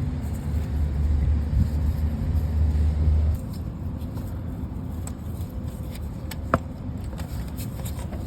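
A low, steady vehicle rumble that cuts off suddenly about three seconds in, leaving a quieter background with a few light ticks and one sharp click.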